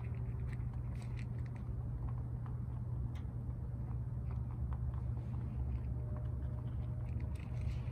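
Rabbits eating from a shared bowl: scattered small crunching clicks of their chewing, over a steady low hum.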